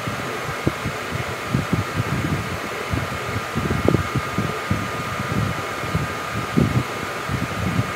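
Steady hum of a fan running, with a few faint steady whine tones, and irregular soft low bumps throughout.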